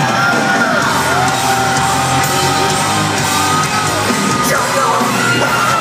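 Live rock band playing loud in a large hall, recorded from among the audience, with long held notes that bend in pitch and fans yelling over the music.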